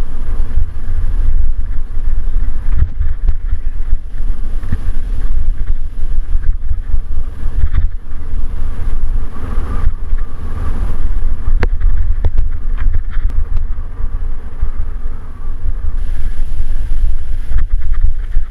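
A mountain bike rolling fast over a dirt and rock singletrack, with heavy wind rumble on the microphone and scattered knocks and rattles from the bike over roots and stones.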